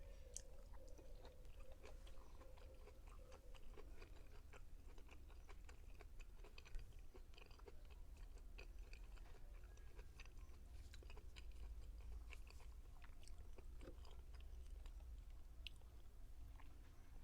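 A person chewing food with many faint, short, wet mouth clicks and smacks, close to the microphone.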